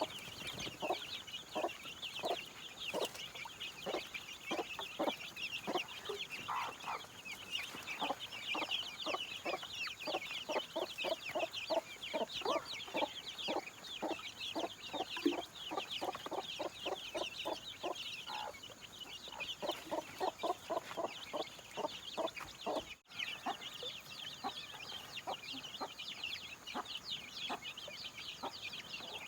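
Chickens clucking in runs of quick short notes over a steady, dense high-pitched chirping, with a brief dropout near the end.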